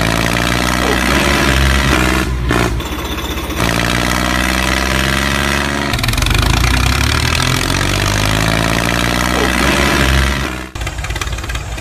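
Tractor engine running, its pitch shifting up and down. There is a brief break about two and a half seconds in, and it turns quieter and choppier near the end.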